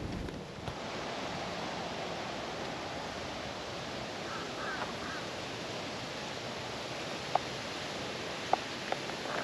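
Steady breeze blowing over the microphone, heard as an even rushing noise, with a few brief sharp ticks in the last few seconds.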